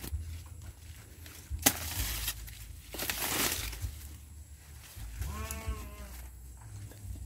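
A goat bleats once, a wavering call of under a second about five seconds in. Before it, corn leaves and brush rustle and something cracks sharply as a person pushes through the cornfield.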